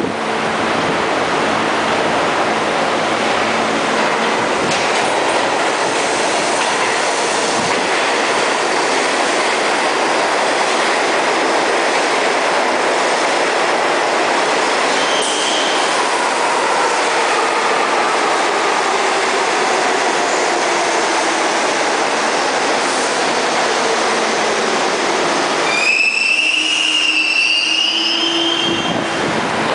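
New York City subway train running, with a loud, steady noise of wheels on rails and faint sliding tones in the middle. A high, wavering wheel squeal cuts in about 26 seconds in and lasts about two seconds.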